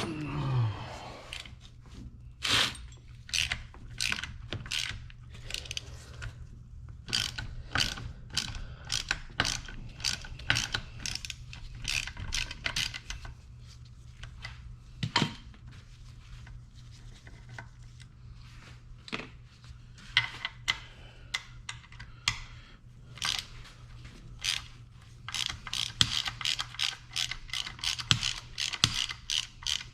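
Ratchet wrench clicking through runs of short strokes, working fasteners on a motorcycle engine, over a steady low hum.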